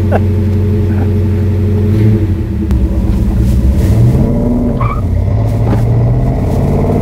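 1968 Shelby GT500's big-block V8 running steadily, then its note rising near the end as the car drives off.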